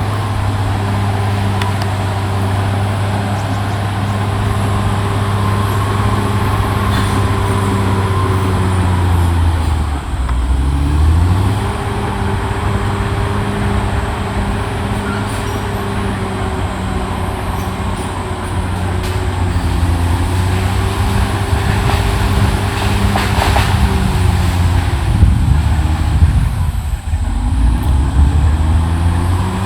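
CAT D6R XL bulldozer's diesel engine running hard, its pitch dipping and recovering twice, about ten seconds in and near the end, as it pulls down under load. A few brief knocks come about two-thirds of the way through.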